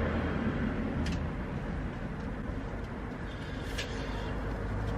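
Steady low background rumble, with two faint light clicks about a second in and near the four-second mark, as of small parts or a tool being handled.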